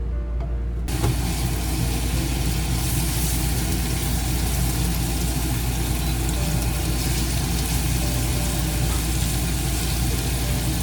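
Vacuum cleaner switched on about a second in and then running steadily with a loud, even rush over a low hum.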